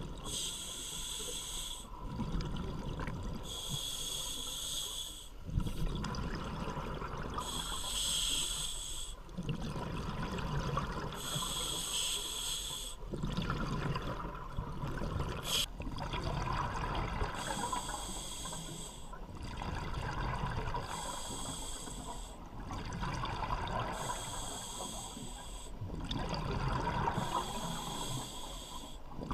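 A scuba diver breathing through a regulator underwater, about eight breaths. Each breath is a hissing inhale of a second or two, followed by the rush and bubbling of exhaled air.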